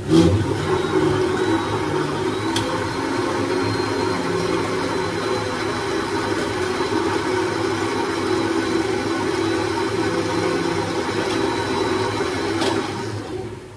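Electric mixer grinder running steadily with a steel jar on its motor base. It starts abruptly and switches off near the end, winding down.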